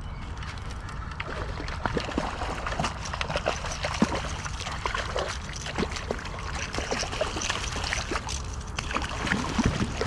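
Water splashing and dripping, with many small scattered ticks and knocks, over a steady low rumble.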